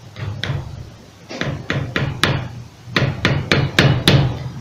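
Light metal taps on a screwdriver set against the brass contact post of an electric hair clipper's switch, driving the repositioned post down into the switch body. About ten sharp taps come in three bursts: two at the start, four a little over a second in, and five in quicker succession near the end.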